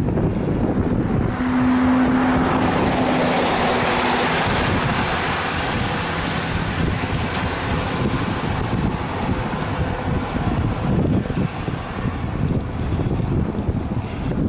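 Wind buffeting the microphone of a bicycle-mounted action camera while riding, with steady low road rumble. A motor vehicle passes in the first few seconds: a hiss swells and fades, with a steady hum.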